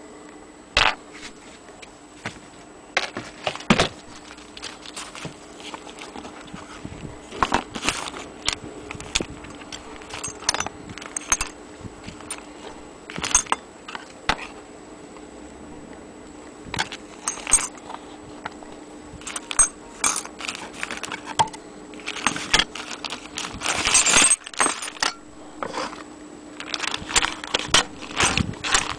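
Irregular metallic clinks and rattles as brass clock parts (movement, pendulum, winding key) are handled and set down on a table. Plastic bag rustling joins in near the end.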